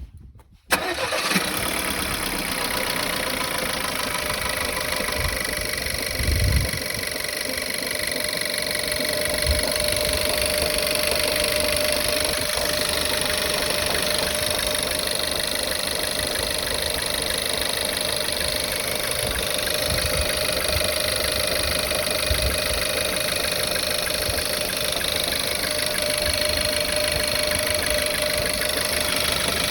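Volkswagen Tiguan 1.4 petrol engine cold-started, catching within the first second and then idling steadily. The owner reports a misfire on cylinder 1, detonation and knocking when it is cold.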